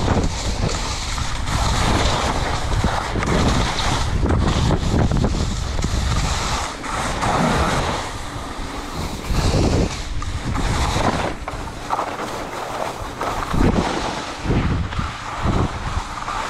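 Wind buffeting the microphone of a body-mounted action camera, in gusts that swell and fade every second or two, over the steady rush of skis sliding on snow.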